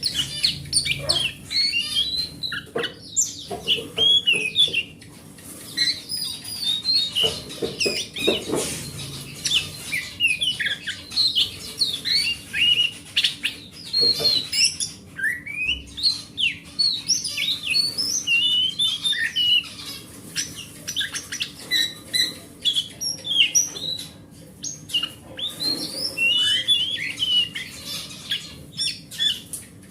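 Oriental magpie-robin (kacer) singing a long, varied run of quick whistles and chirps, with hardly a pause.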